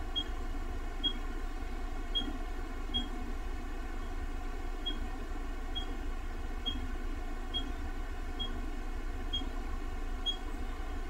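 Steady low hum and hiss with a faint, short high-pitched blip repeating about once a second.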